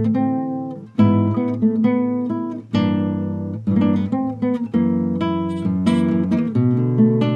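Solo nylon-string classical guitar played fingerstyle: plucked melody notes and chords ringing over low bass notes, with strongly picked chords about a second in and again near three seconds.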